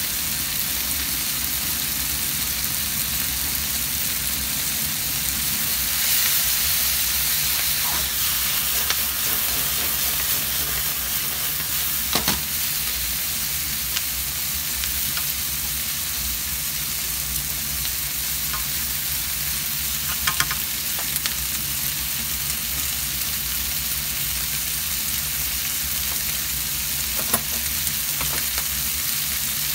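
Offal and vegetables sizzling steadily as they are stir-fried in a nonstick frying pan, with a few sharp clicks of chopsticks against the pan.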